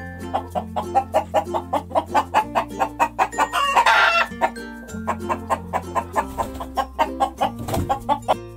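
Chickens clucking in quick repeated notes, several a second, with one louder, longer call about four seconds in, over soft background music.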